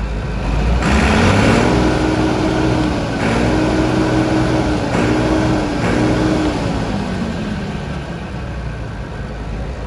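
The Perkins diesel engine of a 1980s Massey Ferguson 850 combine running smoothly, freshly started after sitting for years and sounding like brand new. Its speed rises about a second in, holds, then eases back down over the last few seconds.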